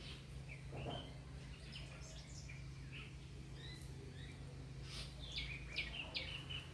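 Several small birds chirping and calling in short, scattered notes, with a run of louder chirps in the second half, over a steady low background hum.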